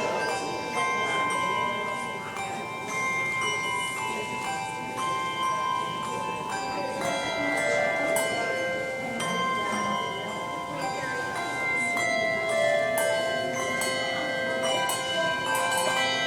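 Handbell choir ringing a tune: many bells struck one after another, each note ringing on and overlapping the next.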